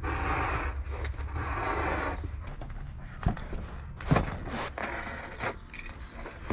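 Utility knife cutting and scraping through a vinyl flooring sheet, a steady scraping hiss for about the first two seconds. After that come several short sharp knocks and crackles as the sheet is handled.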